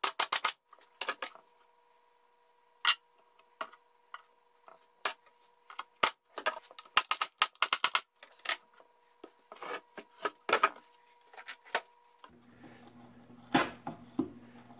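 Pneumatic stapler driving staples into the glued pine top boards of a wooden hive pallet: sharp shots, often several in quick succession, with short pauses between. Near the end a steady low hum comes in, with a few knocks of hand work on the wood.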